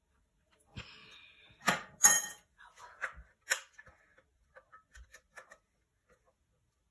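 Silicone spatula scraping and knocking against the inside of a glass blender jar as blackberry purée is scraped out. A short scrape comes first, then a few sharp clinks about two seconds in, the loudest of them, then lighter taps that die away.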